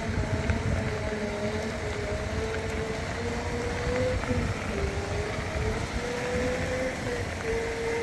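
Off-road Segway's electric drive whining at a steady pitch that drifts slightly up and down with speed, over a low rumble of its knobby tyres rolling on a gravel trail.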